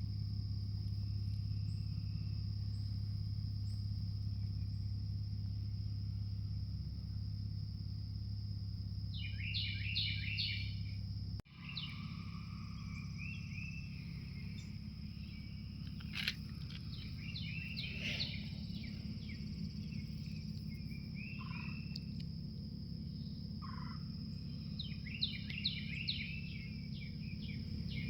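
Outdoor ambience: a steady high-pitched insect trill, with birds chirping in short bursts about ten seconds in, several times in the middle and again near the end, over a low rumble. The sound drops out briefly about eleven seconds in.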